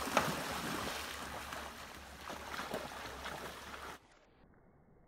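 Water splashing and churning as a golden retriever and a shepherd-husky swim and paddle through a shallow creek pool, sharpest just after the start. About four seconds in the sound drops abruptly to a faint, muffled hush.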